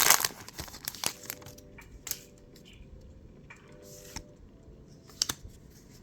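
Pokémon trading cards and their foil booster wrapper being handled: a crinkling rustle at the start, then a few soft clicks and slides of cards being moved through the hands.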